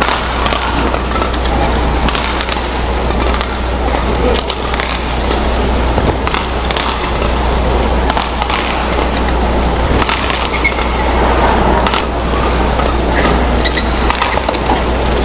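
Badminton rally in an arena: sharp racket strikes on the shuttlecock, several seconds of them at irregular intervals, over steady crowd and hall noise with a low hum.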